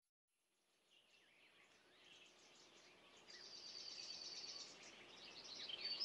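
Several songbirds singing, fading in from silence, with scattered chirps and a rapid high trill of repeated notes lasting about a second and a half from about three seconds in.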